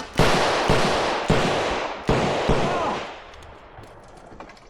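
Revolver shots fired in competition, four loud reports in about two seconds, each trailing off in an echo. After that only faint ticks are heard.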